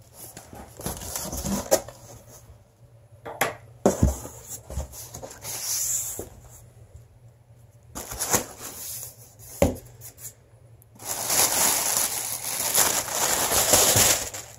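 Cardboard shipping box being opened by hand: scattered knocks and scrapes of the flaps, then a few seconds of continuous rustling as the plastic wrapping inside is handled near the end.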